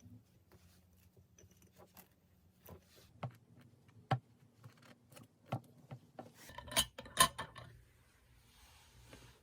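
Scattered light clicks and taps of small hard objects being handled, with two louder clinks a little before the end.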